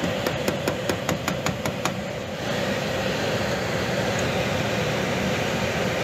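Screwdriver tapping quickly on a heat-strip relay that seems to be sticking on, about nine light taps over the first two seconds. Under it, the air handler hums steadily as it keeps running.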